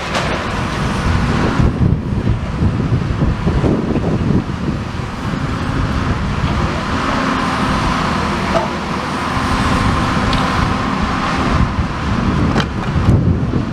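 Steady rumble of motor traffic mixed with a diesel demolition excavator working its grab, with a couple of sharp knocks near the end as debris falls.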